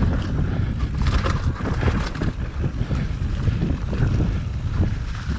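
Mountain bike riding fast down rough singletrack: wind buffeting the camera microphone over a steady low rumble of knobby tyres on dirt and roots, with frequent short clatters and knocks from the bike.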